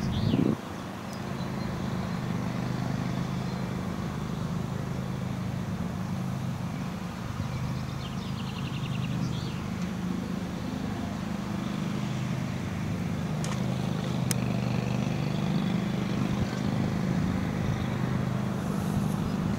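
A steady low drone with a few even tones, like an engine running. A brief high trill sounds just after the start, and another about eight to nine seconds in.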